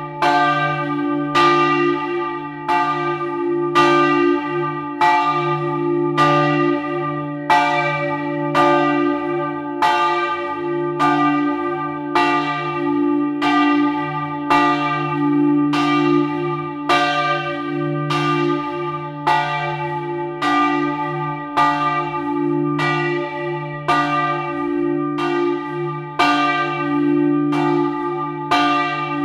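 A single large bronze church bell swinging in full peal, its clapper striking about one and a half times a second. Each stroke rings on into the next, over a steady low hum.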